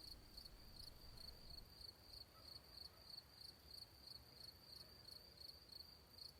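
Faint cricket chirps repeating evenly, about two a second, over a low hiss, cutting off at the very end.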